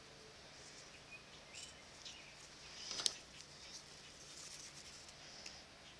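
Scissors snipping and trimming a thin strip of hand-cut leather lace: faint, scattered snips and leather rustling, with one sharper click about three seconds in.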